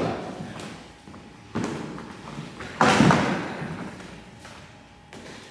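Two thuds on a wooden gym floor, the second about a second later and louder, each echoing in the large hall: a child dropping to the floor in a staged fight.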